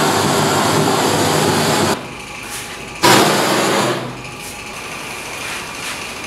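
Gas torch flame hissing steadily as it heats the surface of a bronze casting, cutting off about two seconds in. A short loud burst of hiss follows a second later, then fainter steady noise.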